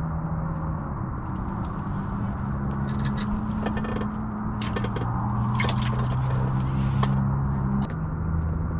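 A low motor hum that steps up and down in pitch every second or two, with a few clicks and rustles of handling.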